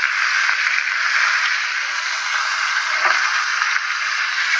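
Corned beef brisket sizzling in hot oil in a skillet as it sears, a steady loud hiss.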